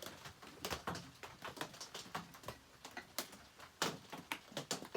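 Irregular light clicks and taps, several a second, of metal tools and parts as bolts are started by hand during a chainsaw reassembly.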